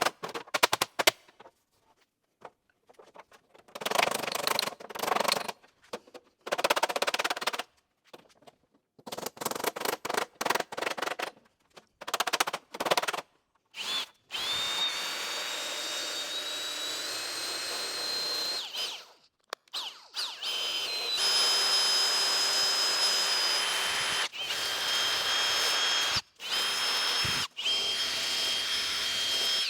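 Edited segments of metalworking in the shop: short choppy bursts of tool noise, then from about halfway a small power tool running steadily with a high whine, used to clean up the repaired steel door skin.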